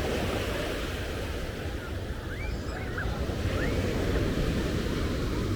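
Ocean surf breaking on a beach, with wind buffeting the microphone. A few faint, short, high cries sound in the middle.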